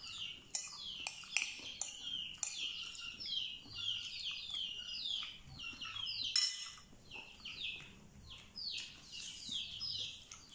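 Birds chirping continuously, a quick run of short falling chirps, with a few sharp clinks of a metal spoon against a ceramic plate in the first few seconds.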